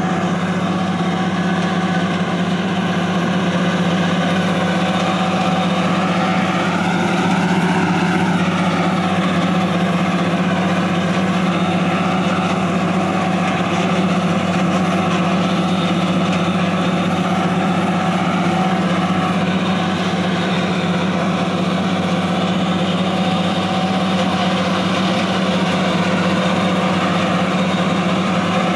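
Tractor engine running steadily under load, driving a tractor-mounted forage harvester that cuts rice straw and blows it out of its spout. A loud, even drone with higher tones that drift slightly in pitch.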